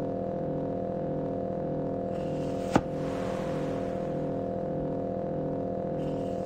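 Electronic drone from SuperCollider sawtooth synths: several steady held tones with a pulsing pattern underneath. About three seconds in, a sharp click is followed by a short hiss.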